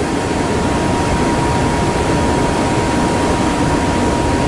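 Kintetsu 'Raku' charter electric train running, a steady rushing noise with a thin steady whine.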